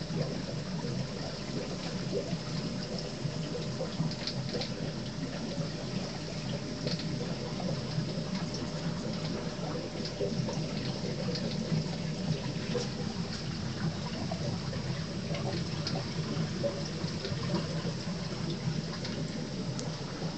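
Aquarium water running and splashing steadily, as the tank's water is circulated, with faint crackling ticks throughout.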